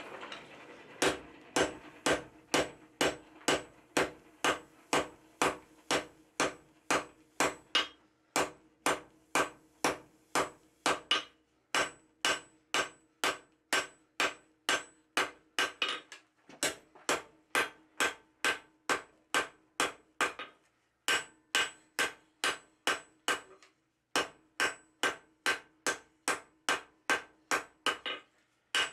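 Hand hammer striking red-hot flat bar steel on an anvil, about two blows a second in runs with short pauses, the anvil ringing between blows: drawing out the tapered point of a divider leg.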